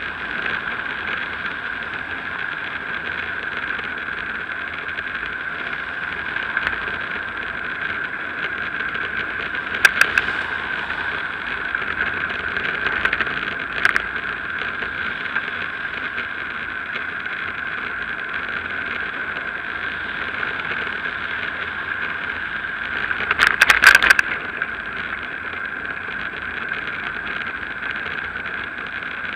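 Steady wind and road noise from a bicycle ride, picked up by a bike-mounted action camera, with sharp clicks about ten and fourteen seconds in and a short burst of rattling about 24 seconds in.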